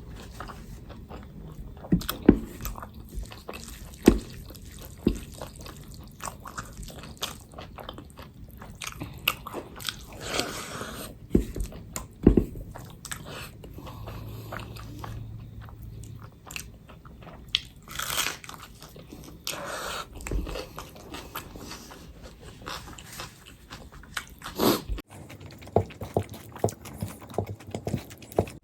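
Close-miked person eating, chewing and biting food, with irregular wet mouth clicks and smacks and a few longer hissy smears.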